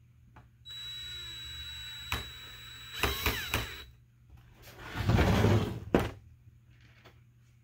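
A 3D-printed plastic hive body being handled and tipped down flat onto an OSB workbench. There is clatter and scraping about three seconds in, a louder sliding scrape about five seconds in, and a sharp thunk as it settles. Near the start, a faint steady hum with a thin high whine lasts about a second and a half.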